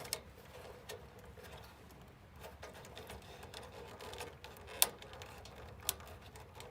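Scattered small clicks and rustling as wire connectors are handled and pushed onto the spade terminals of a furnace fan timer board, the sharpest click about five seconds in.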